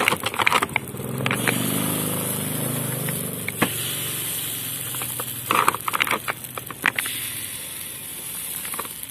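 A motor vehicle's engine runs close by from about a second in and fades out a few seconds later. Under it is a steady crackle of batter cooking in a hot cast-iron kue cubit mould, with scattered sharp clicks and taps.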